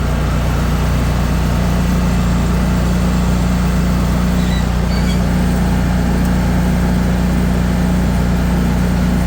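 Kohler 694 cc engine of a Cub Cadet Tank zero-turn mower running steadily above idle, with its blades disengaged.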